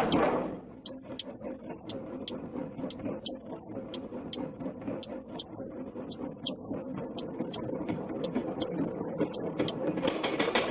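Cartoon machinery sound effect: a mechanism running with a steady rattle and irregular sharp clicks like a ratchet or gears, getting louder and turning into fast, dense clicking near the end.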